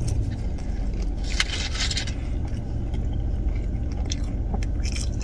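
Steady low hum of a car's cabin with the engine idling, and scattered short clicks and rustles of someone eating seasoned potato wedges.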